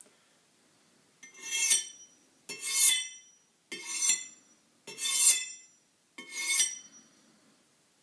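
Knife blade drawn through a two-stage drag-through sharpener five times, about one stroke every 1.2 s. Each pull gives a short metallic rasp with a ringing edge.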